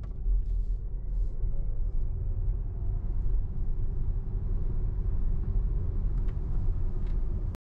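Cabin sound of a Volkswagen ID.5 Pro Performance electric car accelerating hard from about 40 to over 100 km/h. A steady road and tyre rumble runs throughout, with a faint motor whine rising in pitch over the first few seconds, then levelling off. The sound cuts off suddenly just before the end.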